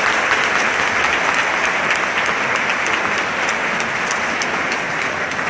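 Large audience applauding: a dense, steady patter of many hands clapping, easing slightly toward the end.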